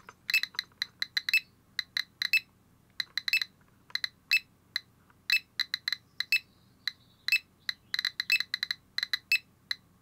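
GQ GMC-320 Plus Geiger counter clicking at random, irregular intervals, several short high clicks a second. It is detecting radiation at a little over 300 counts per minute from the americium-241 source in a smoke detector.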